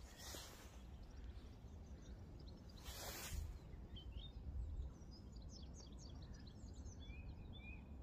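Faint small birds chirping and singing, mostly in the second half, over a low steady rumble, with two short rustles, one near the start and one about three seconds in.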